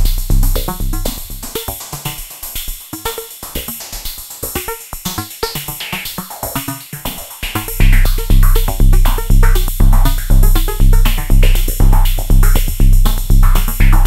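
Mode Machines ADX-1 analog drum machine playing a sequenced electronic pattern of pitched synth notes and hi-hat ticks. Its deep bass drum fades out shortly after the start and comes back hard about eight seconds in, hitting about twice a second.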